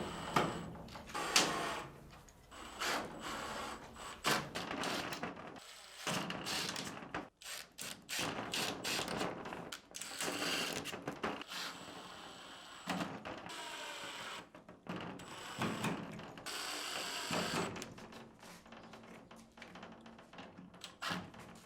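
Work sounds from building a small wooden shed: irregular knocks, clatters and handling noise, in short clips cut one after another.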